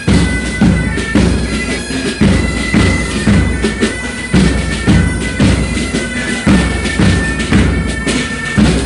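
Military marching band playing a march: wind instruments carry a melody in held notes over a bass drum beating about twice a second.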